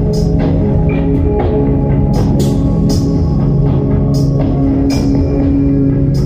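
Instrumental background music: sustained chords over a steady drum beat of about two hits a second.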